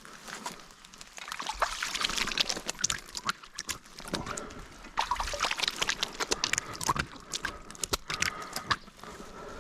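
Water splashing and trickling: dense spells of sharp splashes and drips, from about one and a half seconds to four seconds in and again from five to nine seconds in.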